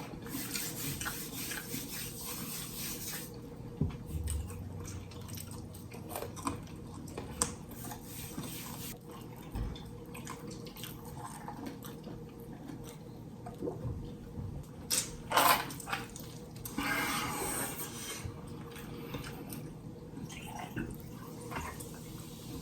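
Close-miked eating of fried chicken: irregular wet chewing and smacking with scattered crunches and clicks, and one louder burst about fifteen seconds in.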